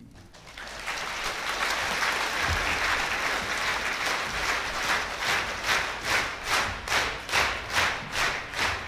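Audience applause on a live music recording, swelling up at the end of a song, then falling into rhythmic clapping in unison, about three claps a second, from about halfway through.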